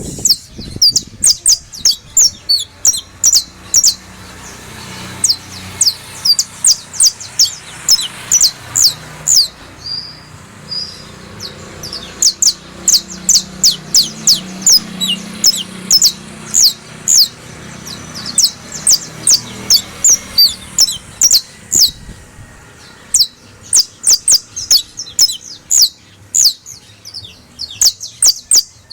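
Creole canary singing: long runs of sharp, high, quickly repeated downward-sweeping notes, several a second, broken twice by short pauses, over a faint low background hum.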